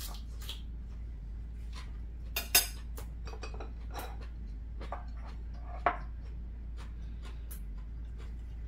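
Chopsticks and spoons clinking against ceramic bowls and plates at a meal: scattered light clicks, with two louder sharp clinks about two and a half seconds and six seconds in.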